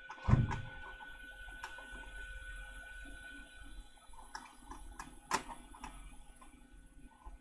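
A low thump just after the start, then a few light, sharp clicks and taps of small tools being handled at a microsoldering bench, over a faint steady hiss.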